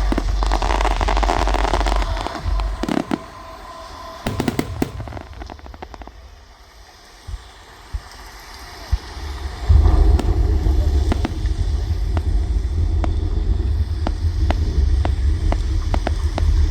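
Aerial fireworks: shells bursting with deep booms and crackling. The booms thin out to a lull of a few scattered cracks, then a fresh barrage of booms and crackling breaks out about ten seconds in.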